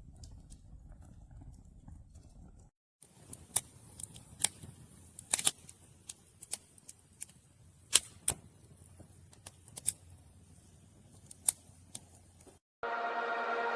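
Wood fire crackling in a portable stainless steel fire pit: irregular sharp pops and cracks over a soft hiss. Electronic music cuts in loudly near the end.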